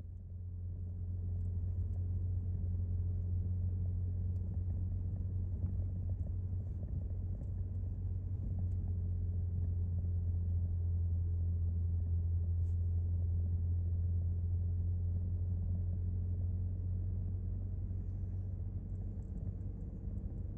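Car driving at low speed: a steady low engine and road drone heard from inside the vehicle, swelling slightly near the middle.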